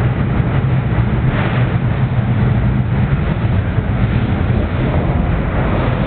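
Takao Cable Car funicular running up its track through a tunnel: a loud, steady low rumble of the car's wheels on the rails.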